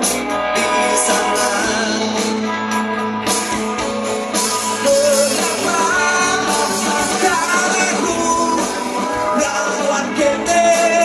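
Rock music with electric guitar, drums and a singing voice, playing continuously at a steady, loud level.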